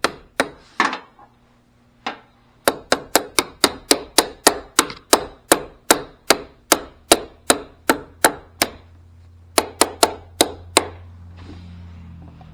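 A new battery terminal being tapped down onto the tight negative battery post with a hammer: a long run of quick, sharp taps, about three a second, broken by two short pauses.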